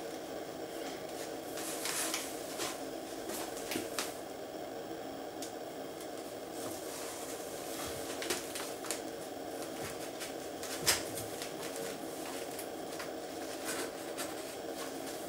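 A cat shifting about in a cardboard box of loose catnip: scattered light rustles, scratches and taps on the cardboard, with one sharper tap about eleven seconds in, over a steady background hum.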